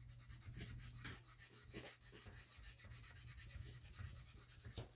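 Faint, rapid rubbing of a fingertip on an anodized aluminum strip, scrubbing off brass smears left by a shell casing.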